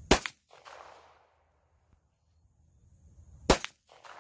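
Two handgun shots about three and a half seconds apart in slow aimed fire, each followed by a brief echo that dies away.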